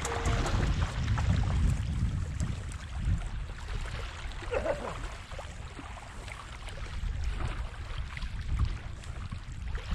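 Lakeshore ambience: wind rumbling unsteadily on the microphone, with small waves washing over the gravel shore.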